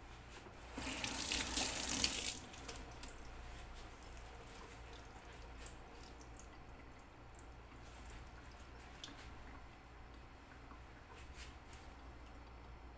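Kitchen tap running briefly, a rush of water about a second in that stops after about a second and a half. After it come faint scattered clicks over a steady low hum.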